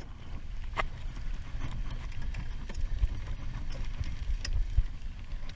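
Wind buffeting the camera microphone over choppy water slapping at a small boat's hull, a steady low rumble. A few light clicks and knocks come through, the loudest right at the start and just under a second in.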